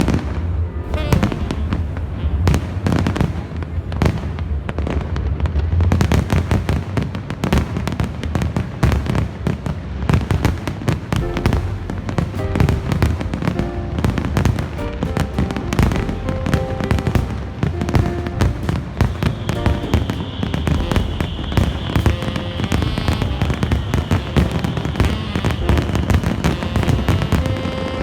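Fireworks going off in a dense barrage of bangs and crackling bursts, over music. The crackle grows thicker about a quarter of the way in.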